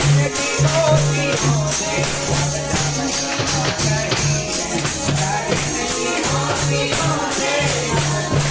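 Kirtan devotional music: voices singing over jingling hand percussion that keeps a fast, steady beat, with a repeating low drum pulse underneath.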